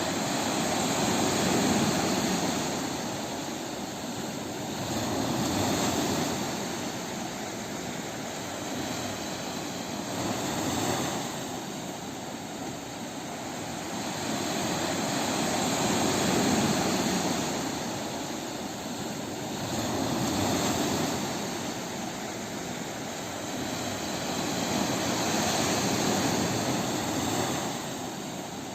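Sea waves breaking on a beach, the surf swelling and receding in a slow rhythm about every four to five seconds.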